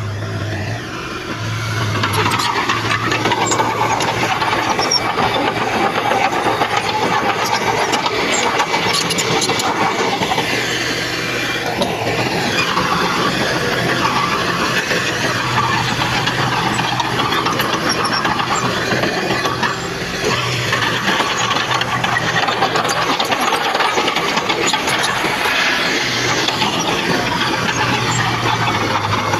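Heavy earthmoving machinery working: a diesel engine running steadily with a continuous low hum, over a high, rough whine that rises and falls in pitch again and again.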